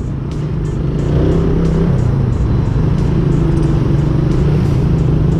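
Suzuki Raider 150 carb-type single-cylinder four-stroke engine pulling away under throttle; its note rises, drops about two seconds in as at a gear change, then holds steady.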